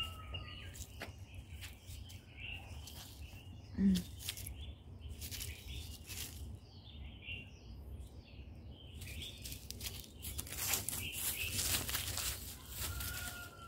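Dry leaf litter rustling and crackling under a dog's paws and a walker's steps, louder and busier near the end, with birds chirping faintly in the background.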